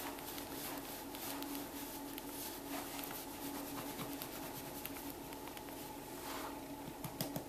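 Terrycloth towel rubbing a wet cat's fur dry: a soft, continuous scratchy rustle over a steady low hum.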